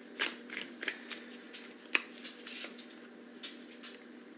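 Tarot cards being shuffled and handled: a run of soft rustles and light clicks, with one sharper snap about two seconds in.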